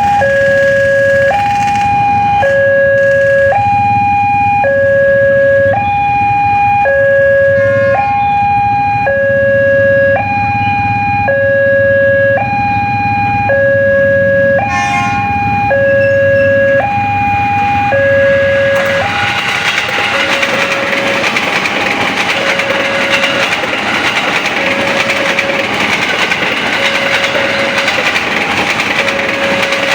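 Kyosan railway level-crossing alarm sounding two alternating tones, high then low, about one cycle every second and a half. About nineteen seconds in, the steady rushing noise of a train passing over the crossing rises over it while the alarm keeps going, fainter.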